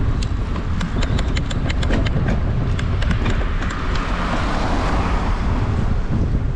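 Wind buffeting the microphone of a camera on a moving road bike, a heavy steady rumble. A quick run of sharp clicks comes in the first three seconds, and a rush of hiss swells about four to five seconds in as a car goes by.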